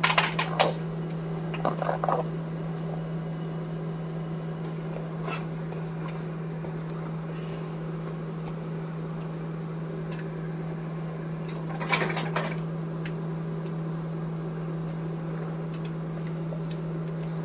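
Hair being brushed: a few short rustles of the brush through the hair, the clearest cluster about twelve seconds in, over a steady low hum.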